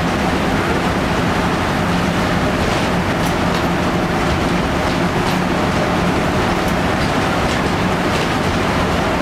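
A Flxible Metro bus's Detroit Diesel 6V92 two-stroke V6 running steadily while the bus is under way, heard from inside the cabin, with road noise and occasional light rattles and clicks.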